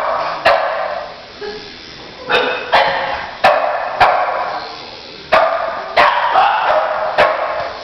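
Boston terriers barking repeatedly, about nine sharp barks in uneven bursts, alarm barking at a small flying object overhead.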